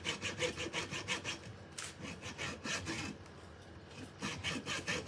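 Hand saw cutting through bamboo in quick back-and-forth strokes, about four or five a second, stopping for about a second some three seconds in and then starting again.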